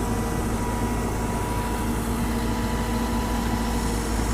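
An engine running steadily at constant speed: a low rumble with an even hum, no revving.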